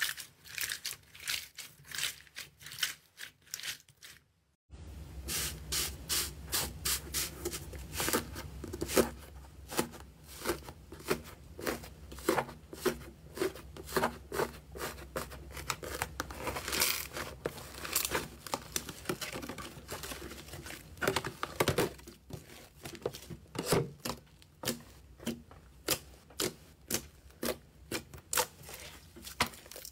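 Slime being squeezed, torn and pressed by hand: a fast run of small crackles, clicks and sticky pops, briefly stopping about four seconds in before going on more densely.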